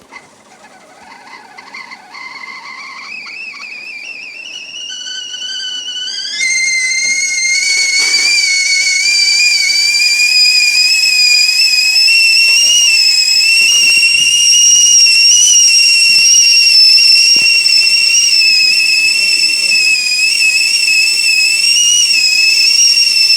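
Whistling tea kettle coming to the boil: a faint whistle begins and glides upward in pitch, then about six seconds in it jumps to a loud, steady whistle that wavers slightly and keeps creeping higher.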